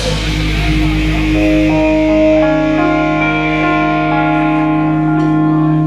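Live rock band ending a song: the drums stop and electric guitars ring on with long held notes, new ones stacking up one after another over a steady low hum.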